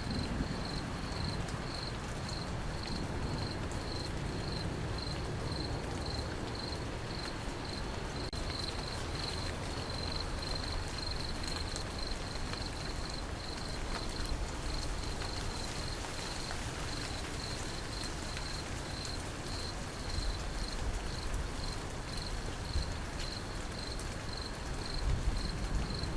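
Steady rain falling, with a cricket chirping in a high, even pulse about twice a second.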